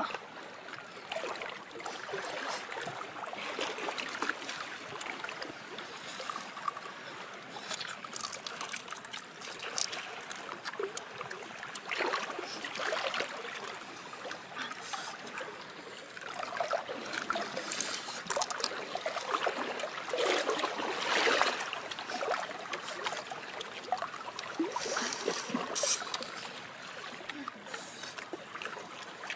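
Water trickling and splashing, with many irregular small clicks and crackles.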